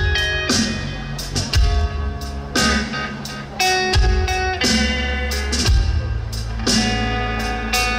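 Live rock band playing: electric guitar notes ringing over bass and drums, with a steady beat.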